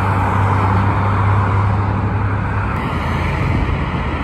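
Steady noise of a car on the move: a low engine hum under an even hiss of road noise. The hum eases a little about two and a half seconds in.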